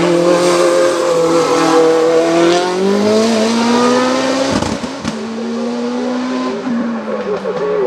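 Mitsubishi Lancer hill-climb prototype's engine running hard, its note climbing slowly, briefly dropping out about four and a half seconds in, then holding steady before falling near the end.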